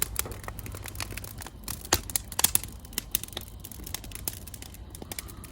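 Wood fire crackling in a newly lit fire stove: irregular sharp snaps and pops, several a second.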